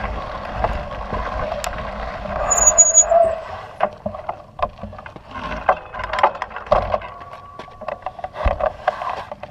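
Mountain bike ridden over a dirt trail, heard from a camera mounted on the bike. A steady rush of tyre and riding noise fills the first few seconds, then gives way to scattered clicks and knocks of the bike rattling as it slows to a stop.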